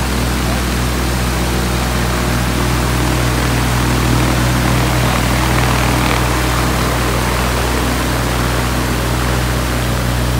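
Viking 130 aircraft engine running steadily with its propeller turning, a constant loud drone that holds one pitch throughout.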